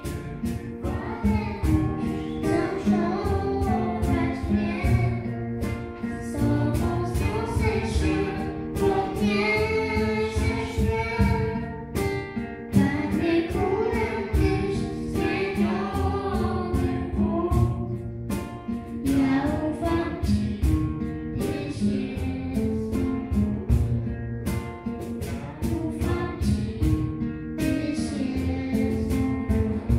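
A young girl singing a Christian worship song into a microphone, accompanied by an acoustic guitar.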